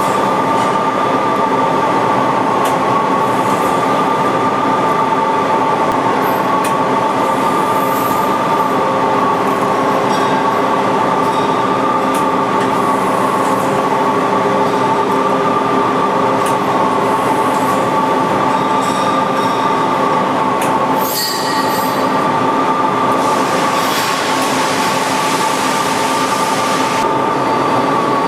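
Fortune V-Turn 46 CNC lathe running under power: a steady high whine of two close tones over a continuous mechanical hum, with a few faint ticks and a stronger hiss for a few seconds near the end.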